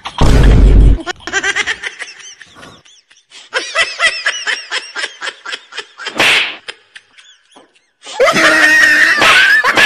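A balloon bursting with a loud bang a moment in, followed by several seconds of laughter. Loud voices, with shrieking, fill the last two seconds.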